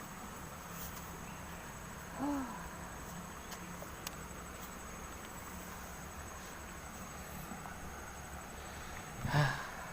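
Insects, likely crickets, trilling steadily in a high continuous tone over faint background hiss. A short arching call is heard about two seconds in, and a brief louder sound comes near the end.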